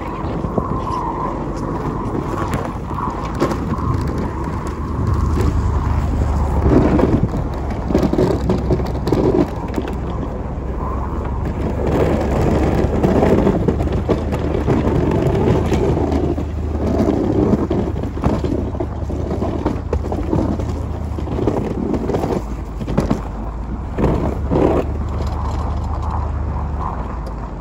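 A 1999 Chevy Suburban's engine runs steadily while its straight plow blade pushes and scrapes snow, with irregular scraping surges and occasional knocks from the blade.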